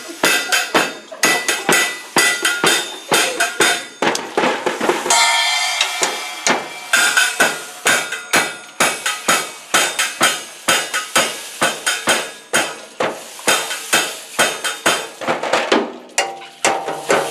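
Millenium drum kit played in a steady beat of sharp drum strikes, about three a second, with a cymbal crash ringing out about five seconds in.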